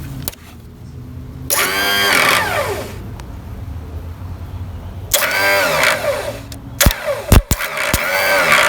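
Electric starter motor on a Snapper Hi-Vac mower whirring up three times, each time rising in pitch and winding down, without cranking the engine: the Bendix drive is not engaging the flywheel, so the starter just spins. A few sharp clicks come between the second and third tries.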